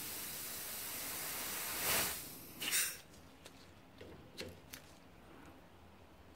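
Compressed air at about 90 psi hissing out of a brake caliper where it leaks past a makeshift blanking plate while pushing out a piston. The hiss swells into two louder blasts about two seconds in and stops abruptly a second later, followed by a few light metal clicks.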